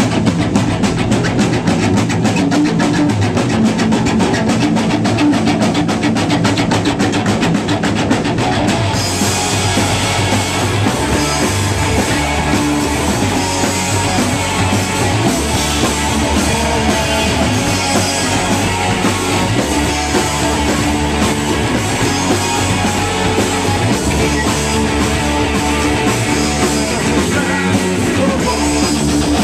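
Live rock band playing loud, driving instrumental rock on electric bass guitar and drum kit. About nine seconds in the sound grows brighter and fuller.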